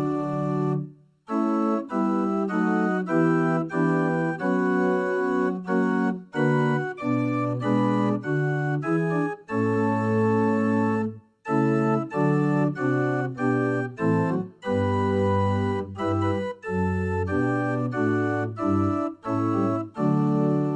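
Church organ playing a hymn tune in sustained chords that change on each beat, with two short breaks between phrases, about a second in and about halfway through.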